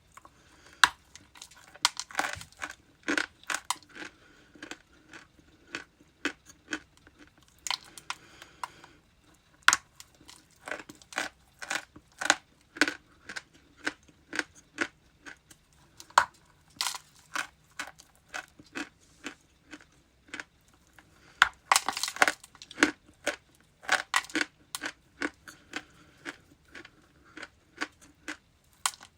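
Close-miked biting and chewing of something hard and brittle: a run of sharp, irregular crunches, several a second, with a denser flurry about two thirds of the way through.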